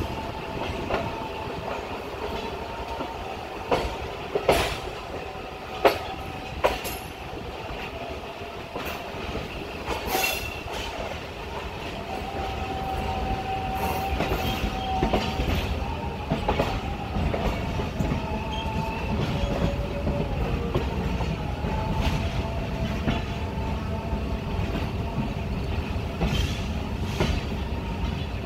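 Passenger train coach running on the track at speed, heard from its open doorway: a steady rolling rumble with sharp clacks as the wheels cross rail joints and points. Thin, high squealing tones come in through the middle stretch.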